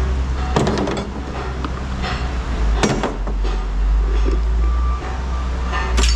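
An engine running with a steady low rumble, and scrap metal clanking as pieces are dropped, three times: near the start, around halfway and near the end.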